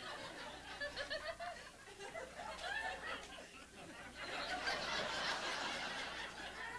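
Audience laughing: scattered chuckles and snickers that swell into fuller laughter about four seconds in.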